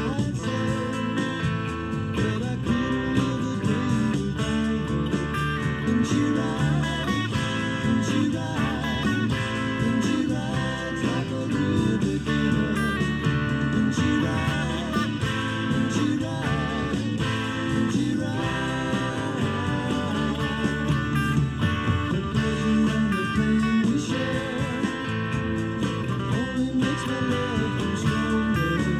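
A blues-rock band recording with drums, bass and guitars, with a Fender Stratocaster electric guitar played lead over it in an improvised style, with bent and wavering notes.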